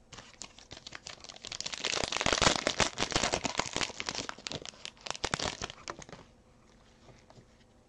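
Plastic wrapper of a trading card pack crinkling as it is torn open by hand: a dense crackle that starts about a second and a half in, is loudest soon after, and dies away about six seconds in.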